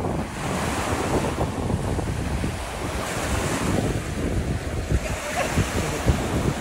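Wind blowing hard across the microphone, a steady rush with uneven gusts buffeting it throughout.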